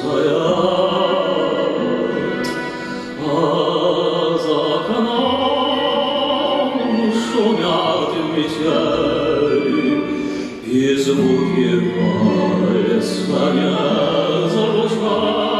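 Small chamber-folk ensemble of violin, cello, double bass, guitar, bayan and domras playing a waltz.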